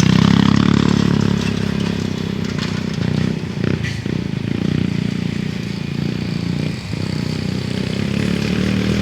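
Motorcycle engine running under throttle, loudest at the start, easing off briefly twice.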